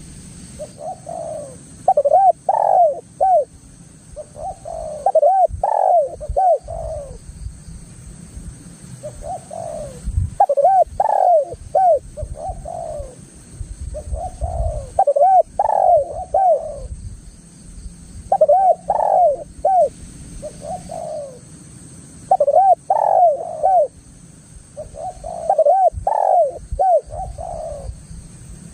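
Spotted dove (tekukur) cooing, repeating its phrase of several rounded coo notes roughly every three to four seconds, over a low rumble.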